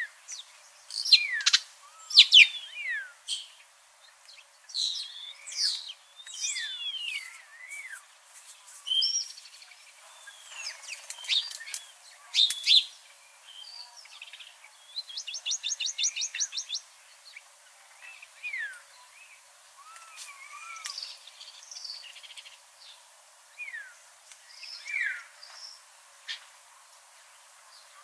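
Several songbirds singing, a busy mix of short chirps and sliding whistles, with a fast trill lasting about two seconds around the middle.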